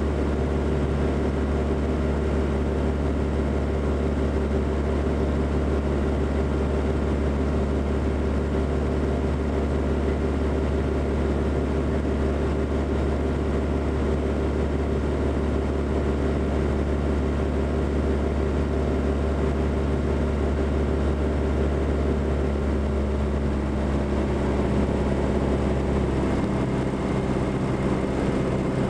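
Aircraft engine drone heard inside the cockpit, steady and loud with a strong low hum and several steady tones. Near the end the low hum shifts slightly in pitch.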